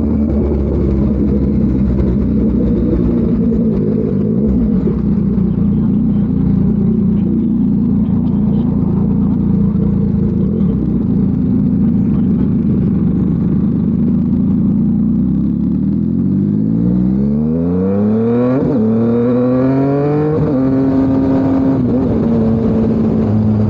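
Yamaha MT-09's crossplane three-cylinder engine through an SC Project CRT exhaust, running steadily at a constant engine speed. About 16 seconds in, the revs climb hard, drop once at an upshift, climb again, and then hold steady.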